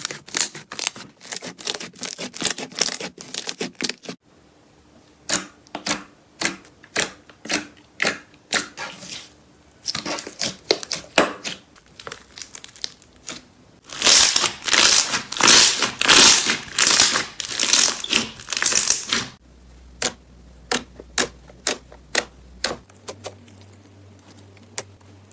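Air bubbles in slime popping as it is worked, in quick runs of sharp clicks and crackles. A denser, louder stretch of crackling comes in the middle, with sparser single pops before and after.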